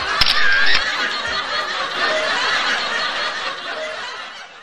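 Canned laughter: a crowd laughing together, fading out near the end.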